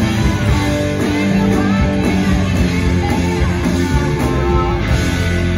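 Live blues-rock band music: electric guitar over bass and drums, with a woman singing.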